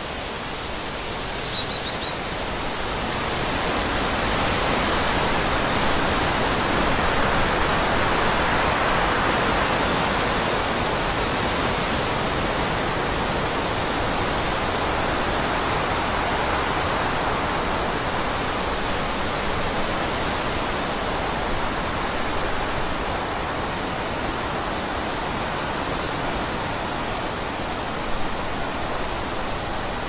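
Forest ambience: a steady rushing hiss of wind through leafy trees that swells a few seconds in and then eases slowly. A brief high chirp comes about a second and a half in.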